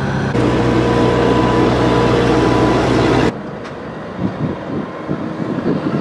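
A heavy engine runs steadily with a constant hum. About three seconds in the sound cuts off abruptly to a quieter tipper lorry driving past on the road, with irregular low thumps.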